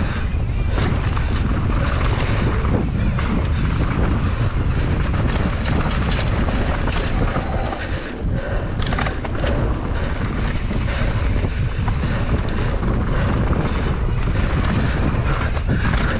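Wind rushing over the microphone of a camera carried on a moving mountain bike, a steady loud rumble, with a few sharp clatters about halfway through.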